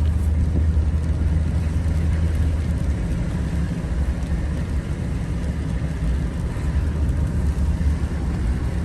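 Pickup truck driving on a wet road, heard from inside the cab: a steady low engine and road rumble with an even hiss over it.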